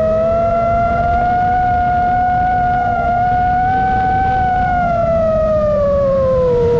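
Drone motors and propellers whining steadily over a rush of prop and wind noise, the pitch falling near the end.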